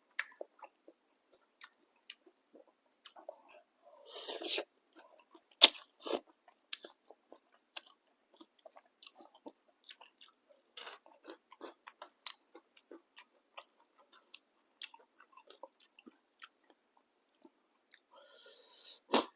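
A person chewing and eating boat noodles close to the microphone: wet mouth clicks and chewing, with a short noisy slurp-like burst about four seconds in and another near the end.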